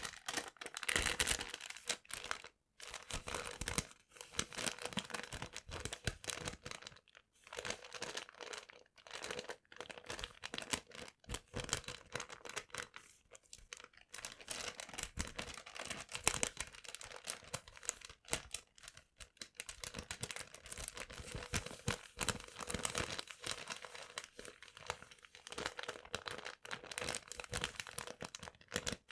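Paper being crumpled and rustled: a dense, irregular run of crackles with a few short breaks.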